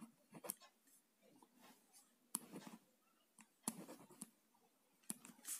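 A pen writing on paper: faint, irregular scratches and ticks of the pen strokes.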